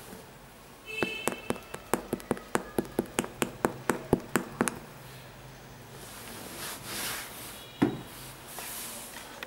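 Quick run of about seventeen sharp taps, roughly four to five a second, as a finger taps on the sole of an Air Jordan 12 sneaker. Then a soft rustle as the shoe is handled, and a single knock near the end.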